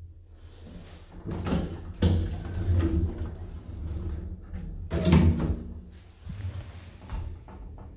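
Elevator's automatic sliding glass doors opening, with a sharp knock about two seconds in and a louder knock about five seconds in.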